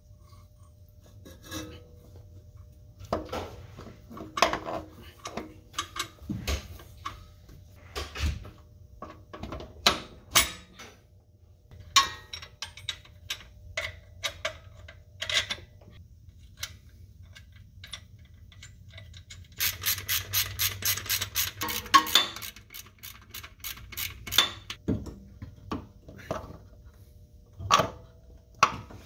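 Metal clinks and knocks from fitting a front axle shaft into a Ford Focus transaxle and handling its bracket and hand tools, with a run of rapid, even clicks lasting about three seconds a little past the middle.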